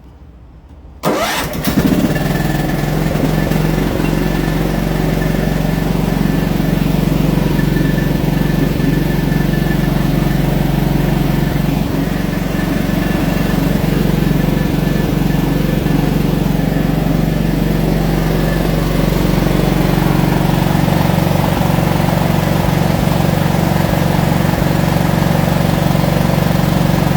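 John Deere riding mower's Kohler engine starting about a second in and then running steadily. This is a mower engine that will not shut off with the key, a fault the owner traces to a bad new aftermarket ignition coil.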